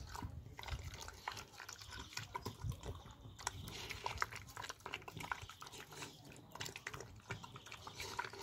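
Dog eating wet porridge from a metal bucket, with a run of irregular wet smacks and small clicks as it chews and laps.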